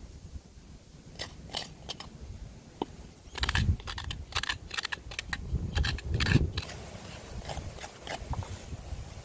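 Crisp scraping and crunching strokes of food being worked by hand. The strokes are irregular and grow loud and dense from about three and a half to six and a half seconds in.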